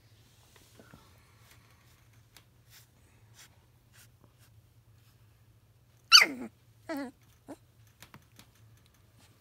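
Sheltie puppy giving a short high cry that falls sharply in pitch about six seconds in, followed by a second, shorter falling cry and a faint third. Faint rustling and small clicks come before.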